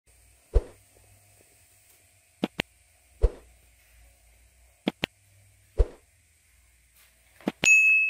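Sound effects of an animated subscribe-button overlay: a soft thump about every two and a half seconds, three pairs of quick mouse clicks in between, and a bell ding that rings out near the end.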